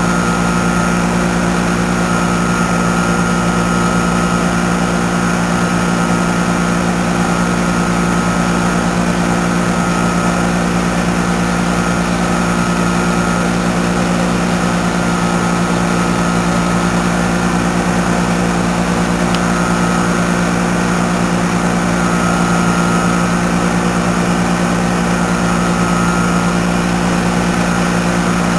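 A large engine running steadily at constant speed: a low, even drone with a faint higher tone that comes and goes.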